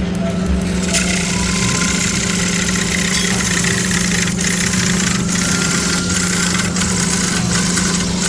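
Woodworking machine's electric motor running steadily, a constant low hum under a broad whirring noise.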